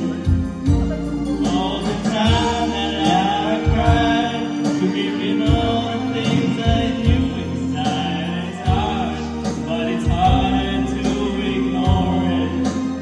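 A song playing: sung vocals over sustained chords and bass with a steady beat.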